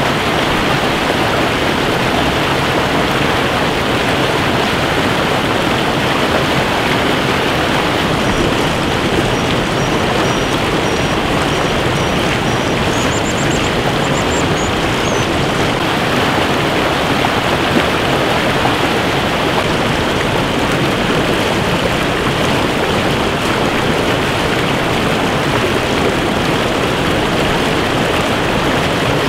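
Steady rush of a fast river running over rocks. Faint, high, thin calls come through about a third of the way in and last several seconds: young American dippers begging.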